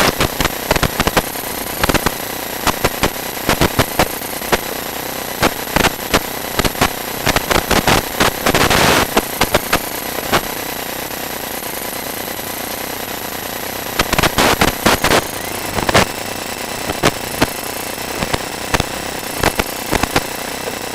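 Sewer inspection camera being pushed through a cast iron drain line: irregular clicks and crackles over a steady hiss, with dense flurries of clicking about 8 seconds in and again near 14 seconds in.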